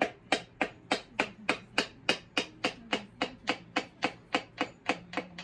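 Steady, gentle tapping, about three light taps a second, driving a wrist pin through a piston and connecting-rod small end of a VW Beetle air-cooled engine.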